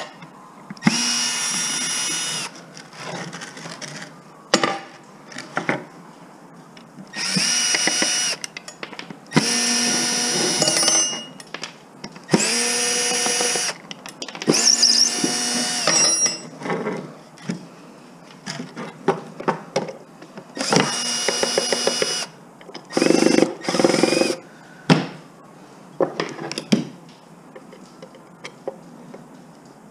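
A power drill runs in about seven short spells of a second or two each as screws are backed out of door hardware. Between the spells, loose metal parts click and clink.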